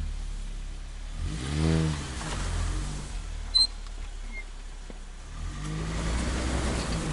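Motor vehicle engine running, its pitch rising and falling twice as it revs up and eases off, over a steady low engine hum.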